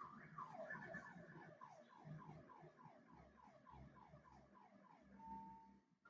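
Faint electronic alarm sounding in the background and cycling through its patterns: a quick run of falling chirps, about four a second, fading gradually, then a short steady tone near the end.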